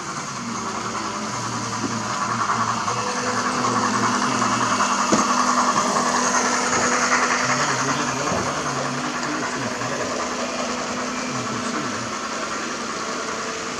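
HO/OO model trains rolling past each other on the track, a continuous running rumble that swells toward the middle as they pass and then eases off.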